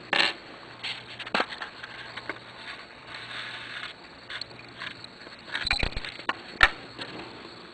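Scattered light clicks and taps of glass test tubes and small metal pieces being handled as zinc is added to copper(II) chloride solution. The sharpest clicks come about two-thirds of the way through, with a faint hiss between them.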